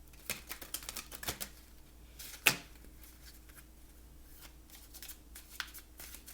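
A deck of angel oracle cards being shuffled and handled: a run of short card flicks and clicks, with one louder snap about two and a half seconds in.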